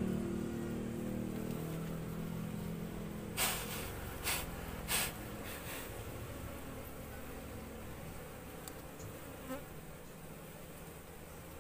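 A mass of Asian honey bees (Apis cerana) buzzing steadily around an opened hive box full of comb. Three sharp clicks come between about three and five seconds in, with a faint one near the end.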